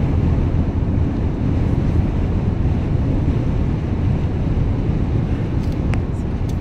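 Steady road and wind noise heard inside the cabin of a moving car at highway speed, a low even rumble.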